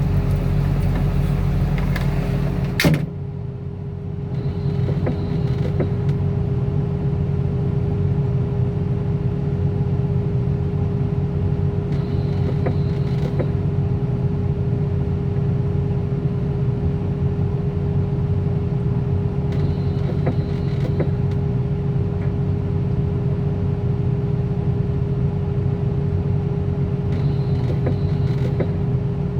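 Engine running steadily with rain hissing. A single sharp slam about three seconds in, after which the hiss drops away and the steady drone and hum remain.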